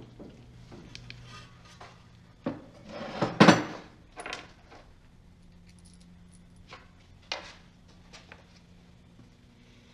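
Metal tools and parts clinking and clanking in a few separate knocks, the loudest cluster about three and a half seconds in, over a faint steady hum.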